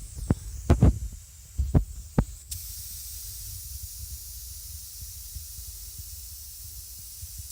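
A few short knocks and clicks of handling, then about two and a half seconds in a steady high hiss starts and holds: air escaping past the bead of a tubeless mountain bike tire as a rock wedged between tire and rim is worked out.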